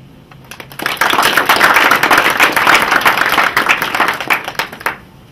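Audience applauding: the clapping starts about half a second in, quickly builds to full strength, then tapers off near the end.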